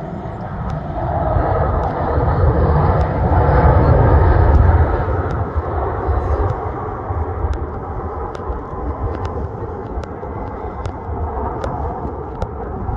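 Airbus A320 jet engines during the landing rollout, swelling to their loudest about four seconds in, then fading as the plane slows and moves away down the runway.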